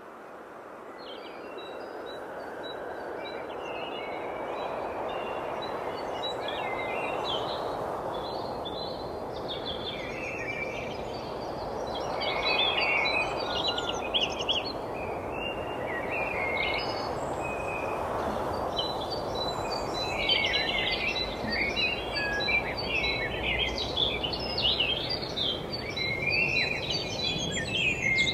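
Outdoor ambience: many small birds chirping and twittering over a steady rushing background noise, the chirping busier in the second half.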